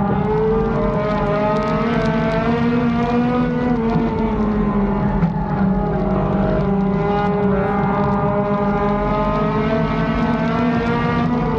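Race car engine running hard, heard from inside its own cockpit. The note holds fairly steady, with its pitch easing up and down slightly as the throttle changes.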